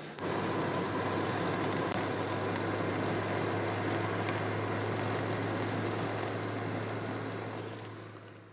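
A car running, heard from inside it: a steady low hum under a hiss, starting suddenly and fading out near the end.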